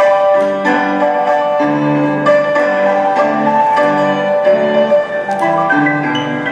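Piano playing an introduction of chords over a moving bass line, ahead of a choir's song.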